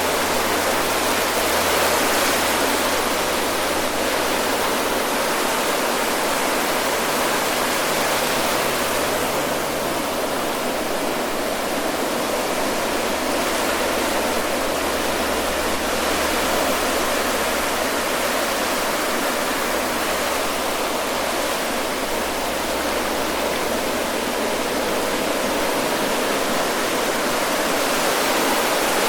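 Ocean surf breaking and washing up the shore as a continuous rushing noise, swelling a little about two seconds in and again near the end.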